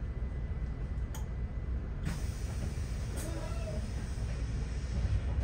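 Steady low rumble of a bus's engine and road noise heard from inside the bus. There is a sharp click about a second in, then a short burst of hiss about two seconds in that lasts about a second, and a briefer hiss just after three seconds.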